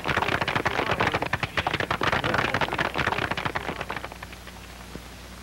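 Crowd applauding, a dense patter of clapping that dies away about four seconds in, leaving only a faint hiss.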